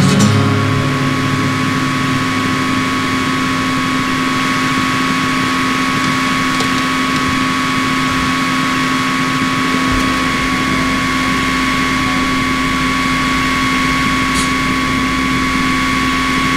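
A steady mechanical drone, like an engine or motor running, with a hiss of noise under it. A low rumble joins about ten seconds in.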